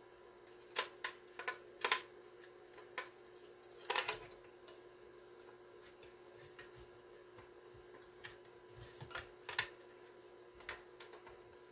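Scattered sharp clicks and light knocks as the metal case of a CB microphone test unit is handled and its parts fitted together, with a faint steady hum underneath.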